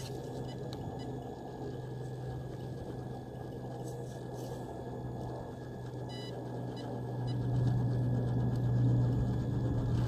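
Scale RC rock crawler's electric motor and geared drivetrain humming at crawl speed as it climbs a steep rock face, one low steady pitch that grows louder about two-thirds of the way through as it pulls harder with a front wheel in the air.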